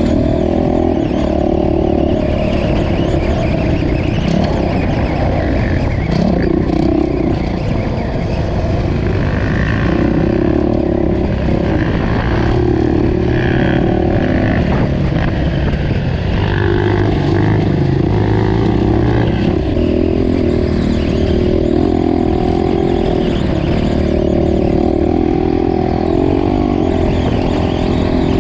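Off-road motorcycle engine running loud and steady at varying throttle while riding a dirt trail, its pitch shifting up and down every few seconds.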